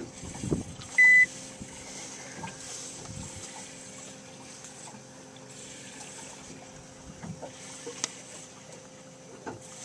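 A single short, high electronic beep about a second in, from the fish finder's keypad as a button is pressed, over a steady low hum and a faint wash of water. A sharp click comes near the end.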